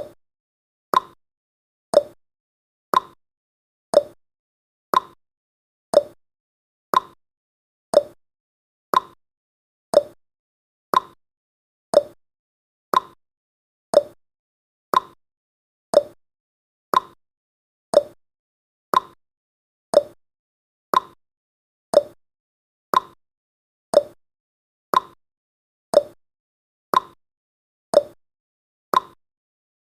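Countdown timer tick sound effect: one short, sharp tick each second, evenly spaced, each dying away quickly before the next.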